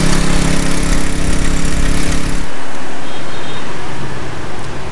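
Small 125cc motorbike engine running steadily, its note mixed with low rumble. About two and a half seconds in, the engine note cuts off abruptly and gives way to an even rushing noise.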